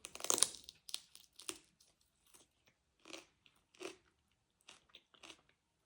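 A crisp bite into crunchy food, then scattered crunches of chewing, each brief and spaced irregularly about half a second to a second apart; the first bite is the loudest.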